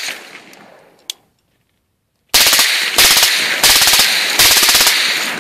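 Suppressed M16 with an 8-inch .300 Blackout upper firing supersonic rounds on full auto. About two seconds in it fires four short bursts in quick succession, each a fast string of shots at roughly sixteen a second (a cyclic rate near 970 rounds per minute). Echo trails off after the last burst.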